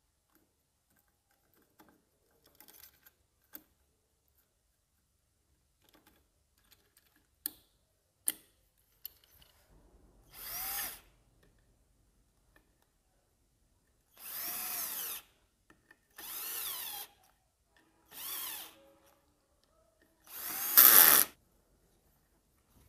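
Handheld electric drill-driver run in five short bursts, each spinning up and winding down, the last one the loudest, as bolts are driven in while the clutch assembly goes back onto a motorcycle engine. A few light metal clicks from parts being handled come before the first burst.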